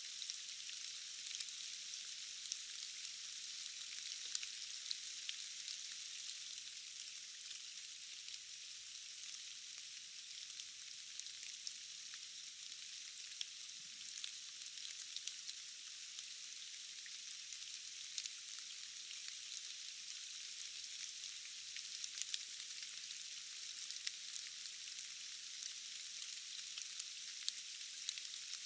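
Steady rain falling, an even high hiss with scattered sharp drop ticks throughout and almost no low rumble.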